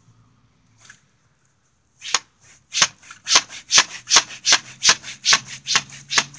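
Plastic pump-action water gun being pumped: a rapid, even run of scratchy plastic strokes, about two to three a second, starting about two seconds in.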